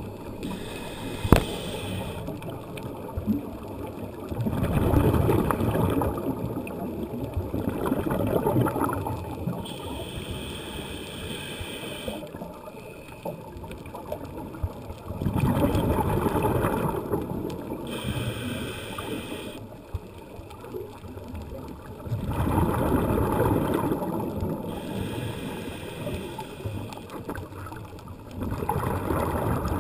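Scuba regulator breathing recorded underwater: a bubbling rush of exhaled air swells about every six to seven seconds, with a quieter hiss between the exhalations. A single sharp knock about a second in.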